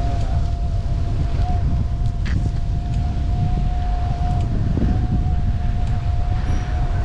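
Wind buffeting the microphone of a bike-mounted action camera while riding, a loud low rumble. A steady high-pitched tone runs over it and cuts off at the very end.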